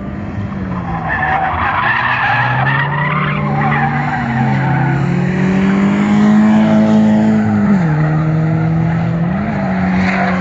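Drift car's engine revving up and down as its tires squeal through a long slide. The engine pitch drops sharply twice and blips once near the end.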